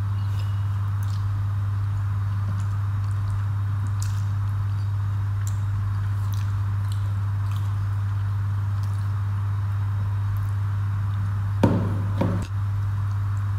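Eating by hand: faint squishes and smacks of rice and curry being mixed and chewed, over a steady low hum. Near the end comes a louder brief clatter, two knocks, as a bowl on the table is reached for.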